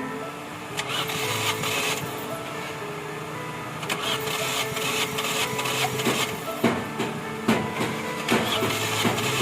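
Background music over a mechanical whirring, with irregular sharp clicks and knocks from about halfway through.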